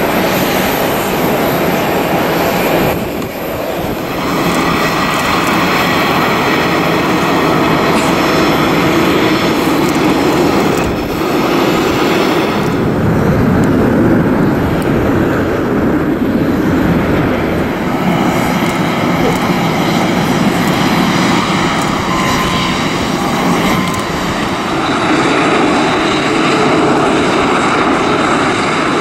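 Jet airliner engines running loud and steady as airliners taxi and an Airbus A330-200 climbs out after takeoff. The sound is heard in several clips, with abrupt changes about three seconds in, about eleven seconds in and near the end.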